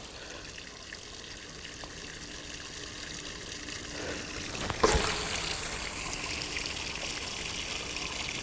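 Surf-casting rod swung hard in a long cast with a heavy sinker: a sudden swish about five seconds in, then a fading hiss of braided line paying off the spinning reel's spool and through the rod guides.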